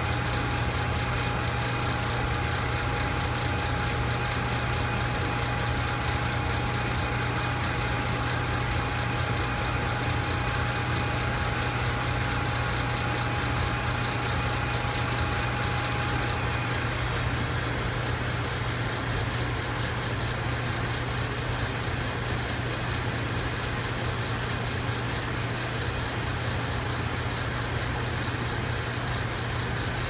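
Steady machinery drone of lab equipment and ventilation: a strong low hum over an even rushing air noise, with a thin steady whine that stops a little over halfway through.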